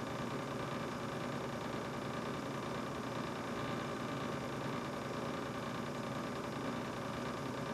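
A new GE refrigerator running with a steady mechanical hum made of several steady tones over a hiss, unchanging throughout.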